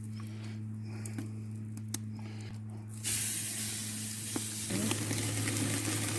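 Chicken sizzling and hissing on a grill over a fire, with a louder spray of hiss starting suddenly about three seconds in, over a steady low hum.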